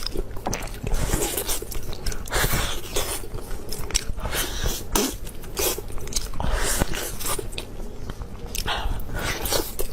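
Close-miked eating: crisp, crunchy food being bitten and chewed, a steady run of irregular crunches.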